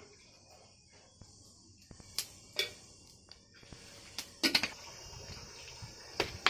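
Hot oil in a steel kadhai over a wood-fired clay stove, with a steady high hiss and scattered sharp pops and crackles. The loudest crackles come about four and a half seconds in, as whole spices go into the oil, and again near the end.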